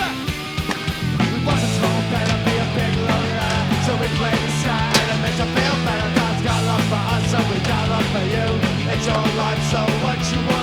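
Loud rock music with distorted guitar, bass and a steady drum beat, no vocals.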